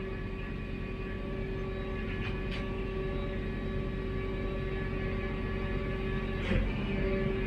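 A machine's engine running steadily with a constant hum, with a couple of short knocks about two and a half and six and a half seconds in.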